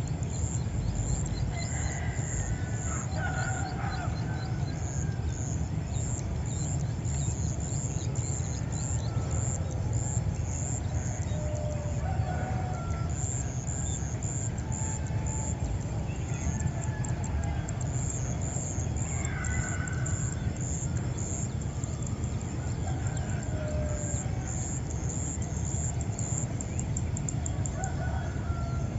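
Village roosters crowing and chickens clucking at intervals of a few seconds, over steady rapid high-pitched insect chirping and a constant low rumble.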